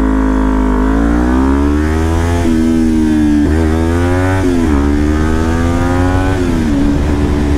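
Kawasaki Ninja 400's parallel-twin engine accelerating hard from a standstill. Its pitch climbs through the gears, with a quick dip at each of about four upshifts, then holds steady near the end.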